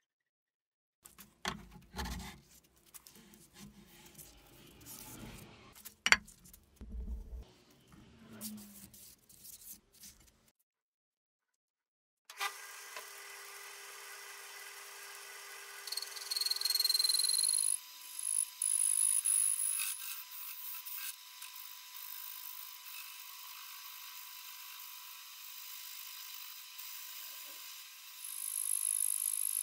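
Metal parts rubbing and knocking as a cast-iron table bracket and collar are worked onto a steel drill press column, with one sharp knock about six seconds in. After a break, an old metal lathe runs steadily with a large disc mounted on it, and a loud high whine comes and goes three times.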